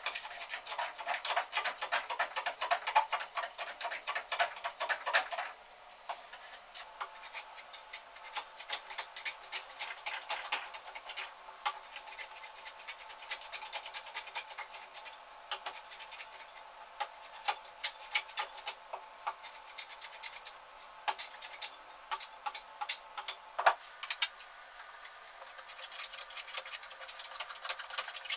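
Edges of a glued-up rosewood-and-maple jig being rubbed smooth with quick back-and-forth strokes. The strokes are loudest and densest for about the first five seconds, then go on lighter, with a single sharp knock about three-quarters of the way through.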